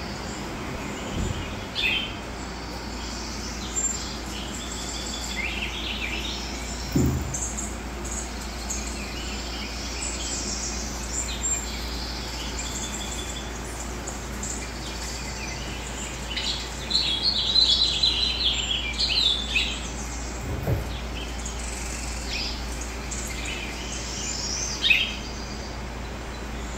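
Recorded birdsong from a nature video playing over computer speakers: scattered short chirps and trills, with a busier run of chirping about two-thirds of the way through. A few soft thumps are heard along with it.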